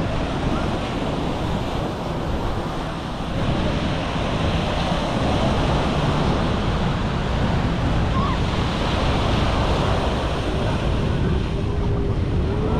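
Sea surf washing steadily onto the beach, with wind buffeting the microphone in a low, uneven rumble.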